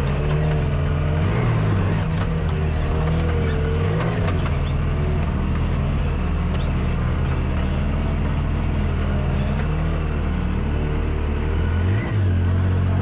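Three-cylinder side-by-side UTV engine running at low revs, its pitch rising and falling over and over as the throttle is worked crawling over rocks.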